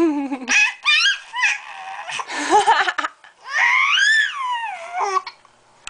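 A baby babbling and squealing in a string of separate calls, with wavering pitch; the longest is a high squeal that rises and falls from about three and a half seconds in.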